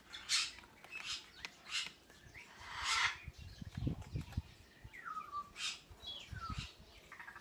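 African grey parrot giving a series of short chirps and clicks, with a couple of falling whistles in the second half.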